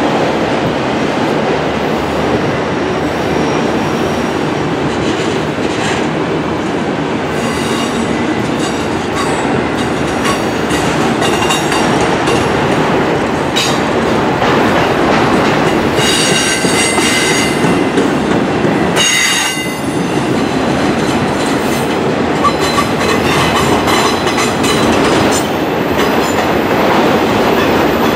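Empty autorack cars of a freight train rolling past on a curve: a steady rumble and clatter of steel wheels on the rails. High wheel squeals ring out in several spells, strongest a little past the middle.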